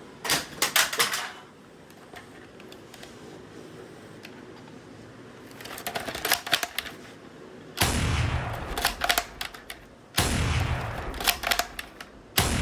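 Airsoft L96A1 spring bolt-action sniper rifle: quick bursts of metallic clicking from the bolt and mechanism, then three sudden shots about two seconds apart, each trailing off over a second or so.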